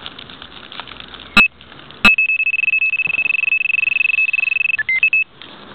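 Electronic carp bite alarm sounding a run: one short beep, then under a second later a continuous high-pitched tone for about three seconds as line is pulled off. The tone dips briefly in pitch near the end, then cuts off.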